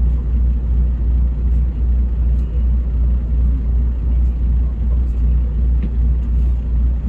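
Hino RG230K coach on the move, heard from on board: a steady, loud low rumble from the engine and running gear, with road noise above it.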